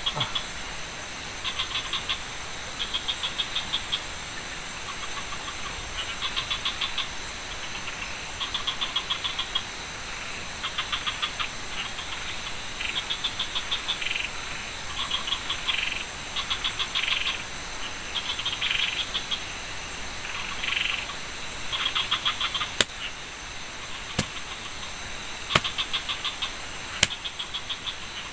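Chorus of frogs and insects: rapid pulsing calls, each about a second long and repeating every second or two, over a steady high insect drone. A few sharp clicks come near the end.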